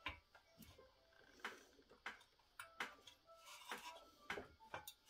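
Light, sharp metallic clicks and taps at irregular intervals, about a dozen in all, from a hand tool on the rear shock's upper mounting bolt of a Honda Z50 minibike as the bolt is loosened.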